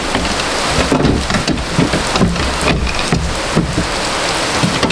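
Heavy rain coming down hard, a steady loud hiss of dense patter.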